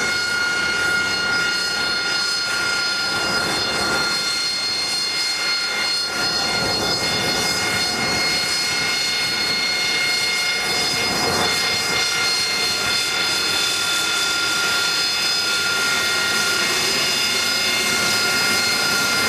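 Harrier jump jet's Pegasus turbofan whining steadily at low taxi power, a constant high whine of several pitches over a rushing hiss.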